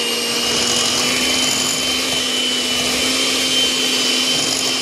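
Electric hand mixer running steadily with a constant whine, its beaters creaming softened butter in a bowl.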